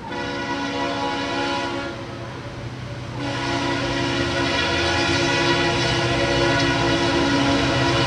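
Backwards-mounted Leslie RS3L three-chime air horn on a Norfolk Southern diesel locomotive blowing a chord. A blast of about two seconds comes first, then after a short break a long blast that is still sounding at the end, over the low rumble of the approaching diesel engine.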